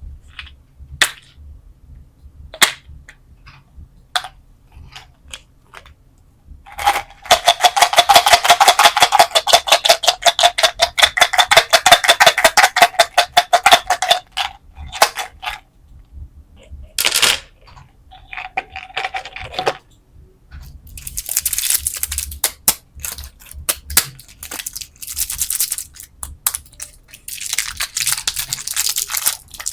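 Hands handling candy and its packaging: scattered sharp clicks, then a long run of rapid clattering with a slight ringing tone, like hard candies rattling against a container. Later come a few shorter clicky bursts and crinkly rustling.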